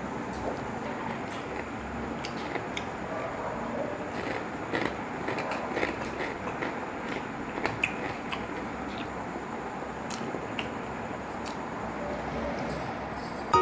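Close-up chewing and mouth sounds of someone eating pork and rice, with scattered short crunchy clicks over a steady background hiss.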